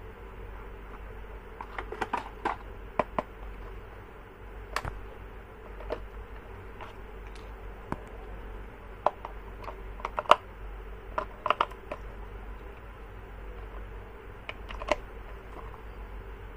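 Light plastic clicks and taps from toys and their parts being handled, coming irregularly and sometimes in quick clusters of two or three, over a steady low hum.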